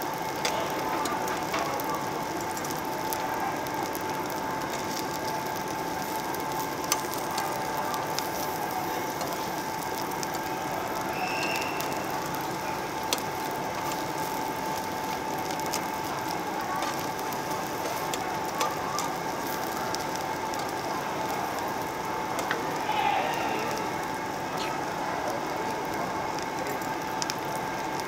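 Pork belly sizzling and crackling on a tabletop Korean barbecue grill plate, with a few sharp clicks of metal tongs against the grill. A steady hum runs underneath.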